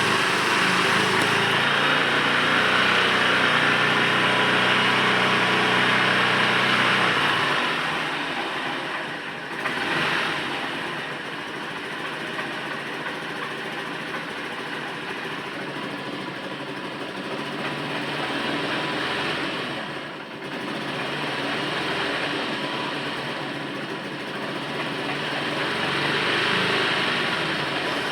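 Engine running, with a steady even note for about the first seven seconds, then a rougher, noisier sound that rises and falls in level; the owner is recording it for a strange noise.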